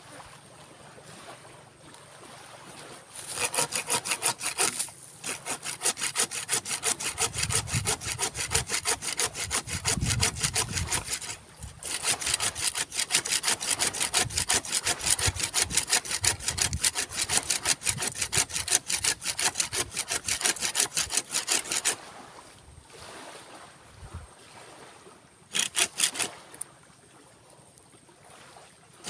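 Hand saw cutting through the dry dead wood of a santigi (Pemphis acidula) bonsai stock in quick, even back-and-forth strokes. The sawing starts about three seconds in, breaks briefly twice and stops a few seconds before the end, with one short burst of strokes near the end.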